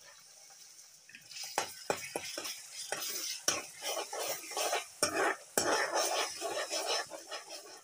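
Chopped tomatoes sizzling in hot spiced oil in a kadai, stirred with a metal spatula that knocks and scrapes against the pan. The sizzling comes up about a second in.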